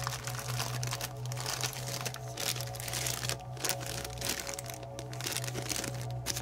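A clear plastic bag crinkling in irregular crackles as the cable inside it is handled and pulled free, over steady background music.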